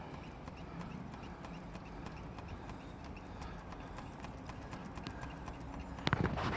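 Priming pump on an excavator's diesel fuel lift pump being worked by hand, a steady run of light clicks; the pump is not drawing fuel up from the tank. A louder clatter near the end.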